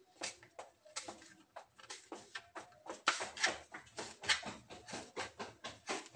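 Kitchen knife cutting small eggplants into cubes on a cutting board: a quick, uneven run of knife taps on the board, several a second.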